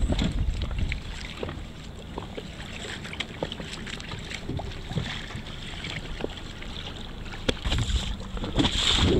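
Wind buffeting the microphone on open water, easing off after about a second and picking up again near the end, with water lapping and scattered small knocks and slaps.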